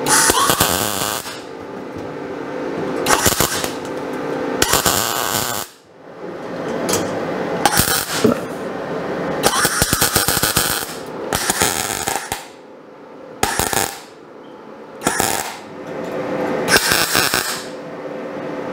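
MIG welder tack-welding thin sheet-steel roof seams: a series of about ten short arc bursts, each under a second or so, with brief pauses between them and a steady low hum underneath.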